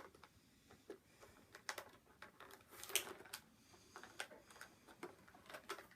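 Faint, irregular small clicks and crackles of plastic toy packaging being handled while a wire twist tie holding the figure is worked loose.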